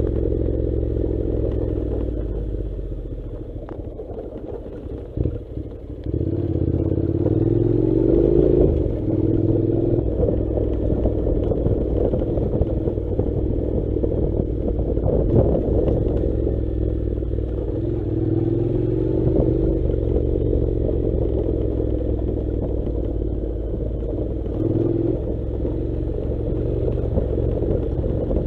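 Honda NC700's 670 cc parallel-twin engine running under way off road, with clattering and a few sharp knocks. The engine eases off about three seconds in and picks up again about six seconds in.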